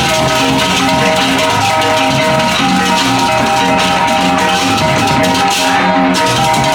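Balinese baleganjur gamelan playing loudly and continuously: gongs and tuned bronze kettle-gongs ring sustained pitches over a dense, crashing shimmer of cymbals and driving drum strokes.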